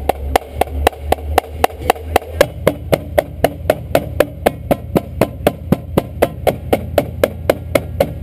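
Steady, even clicking pulse, about four sharp clicks a second, keeping time for a marching drumline warm-up.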